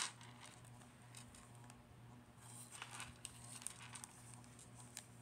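Faint rustling and light ticks of small plastic bags of diamond-painting drills being handled, over a steady low hum.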